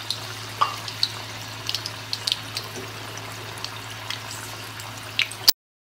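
Raw-banana balls deep-frying in hot oil in a wok: a steady sizzle with frequent small crackles and pops. The sound cuts off abruptly near the end.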